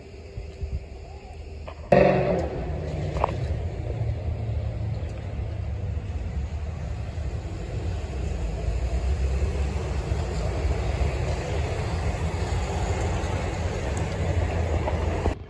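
Street traffic at an intersection, with cars and a small shuttle bus driving past over a steady low rumble. It starts abruptly about two seconds in and cuts off just before the end.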